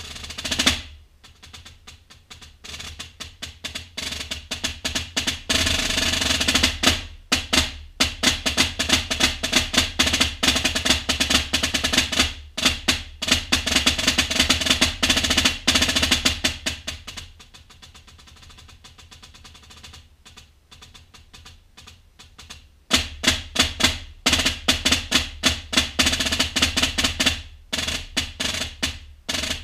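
Solo multi-percussion playing on a set of snare drums struck with sticks: fast strokes and rolls that build from soft to loud over the first few seconds, drop to a softer passage a little past the middle, then come back loud.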